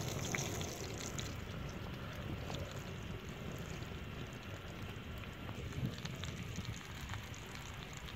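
Open wood fire crackling with scattered small pops, under a steady hiss of spotted doves sizzling in their juices on a hot stone slab.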